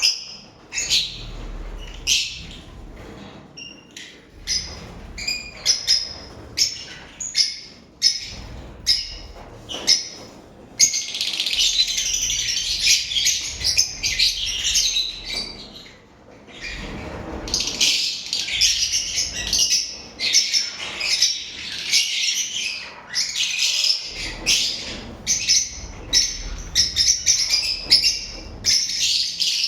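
Lovebirds chirping: sharp separate chirps at first, then, about eleven seconds in, a dense unbroken high chatter that drops out briefly around sixteen seconds and picks up again.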